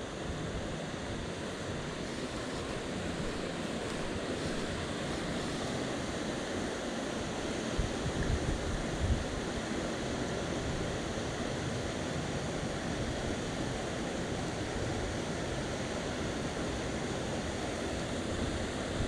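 Steady rush of high water pouring over a creek spillway, with wind buffeting the microphone in a few low gusts around the middle.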